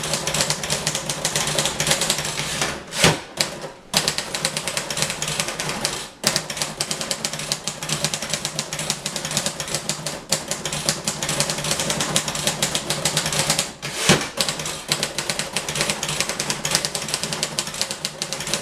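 Manual portable typewriter typed fast and continuously in a timed speed test: a rapid, dense clatter of key strikes. Twice, about three seconds in and about fourteen seconds in, a louder single clack is followed by a brief pause.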